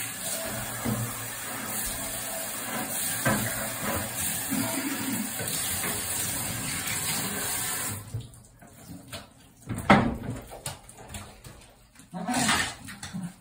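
Handheld shower spray running steadily onto a wet cat, with the cat meowing through it. The water cuts off about eight seconds in, leaving scattered handling sounds and one loud knock about two seconds later.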